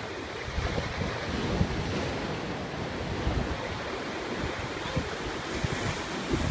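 Ocean surf breaking and washing against a rocky shore, with wind buffeting the microphone in irregular low gusts.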